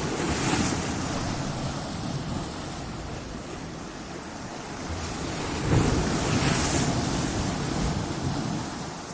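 Ocean waves crashing on a shore: one wave breaks at the start and a second, louder one about six seconds in. Each crash is a surge of rumbling, hissing surf that washes out and slowly fades.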